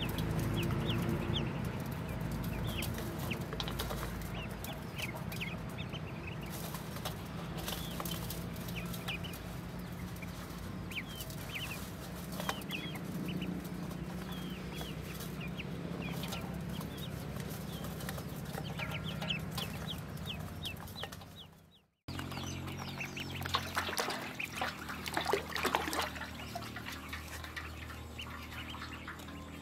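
A brood of ducklings peeping: many short, high cheeps scattered throughout over a low steady hum. After a brief break about two-thirds through, the peeping comes denser and louder.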